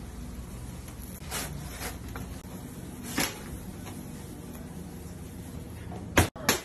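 Steady hum of a pizzeria kitchen with a few light clicks, then two sharp knocks near the end as a metal pizza peel strikes the deck oven.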